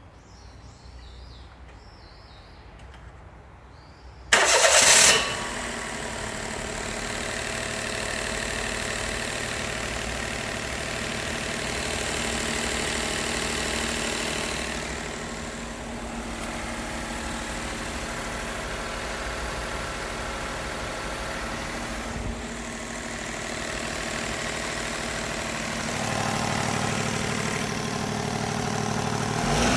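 Daihatsu Mira Custom L275S's three-cylinder engine cold-started with all accessory belts off and the water pump removed: a short loud start about four seconds in, then steady idling. The abnormal noise is gone, which points to the water pump as its source.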